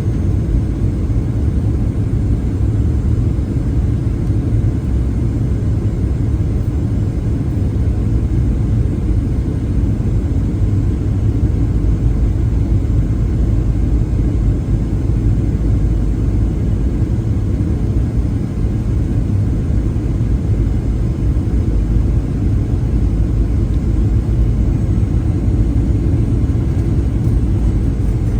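Steady low rumble and rush of air inside the cabin of a Boeing 737-900ER in flight.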